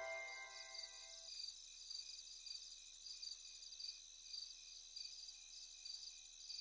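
Faint crickets chirping in an even pulse about twice a second. The last of a soft music cue dies away in the first second or so.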